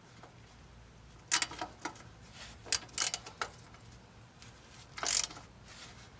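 Wrench working a rusted exhaust bolt loose on a Ford 292 Y-block engine: about six short metallic rasps and clicks at irregular intervals.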